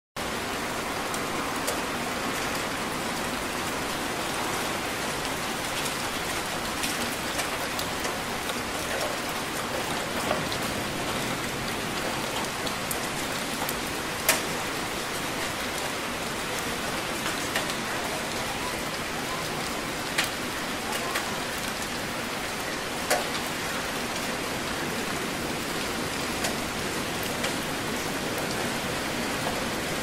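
Heavy rain falling, a steady even hiss, with sharp single drops striking close by every few seconds; the loudest tap comes about halfway through.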